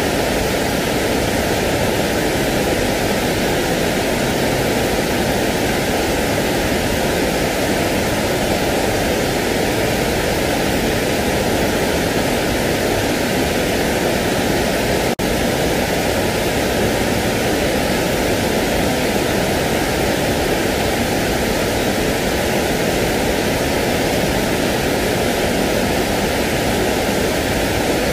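Steady, unchanging white-noise-style hiss of a sleep noise track, with a momentary dip about fifteen seconds in.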